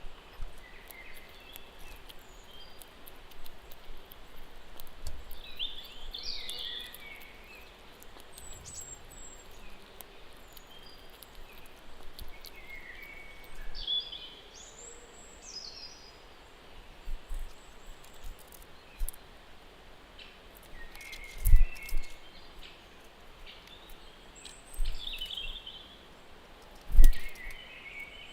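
Small birds chirping and calling now and then over a steady outdoor hiss, with a few short low thumps about three-quarters of the way in and near the end.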